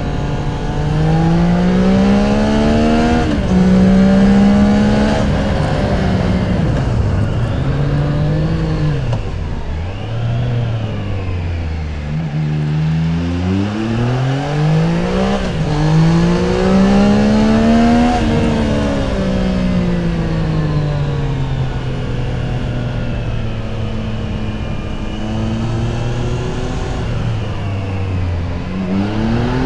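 Triumph Tiger 660 Sport's inline three-cylinder engine under way, revving up and down: it climbs through the gears with a pitch drop at each shift early on, eases off to near idle about halfway, pulls hard again, then falls away gradually before rising once more near the end.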